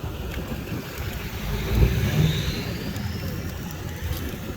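Electric scooter on the move: wind rumbles on the microphone, with a loud buffet a little under two seconds in, and a thin motor whine rises in pitch as it speeds up.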